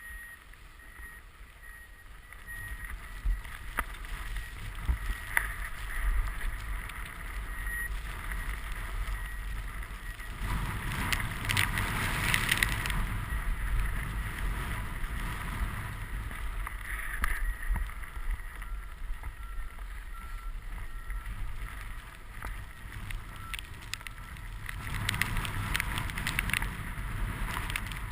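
Rushing wind on the camera and a snowboard sliding and hissing through fresh snow. The noise swells louder about ten seconds in and again near the end.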